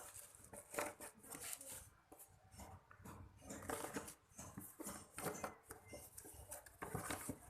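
Scattered light clicks, clinks and rattles of small objects being handled and packed away.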